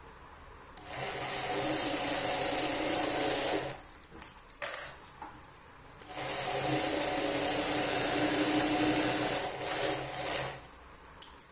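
Electric sewing machine stitching in two steady runs of about three and four seconds. A short pause with light handling clicks falls between them.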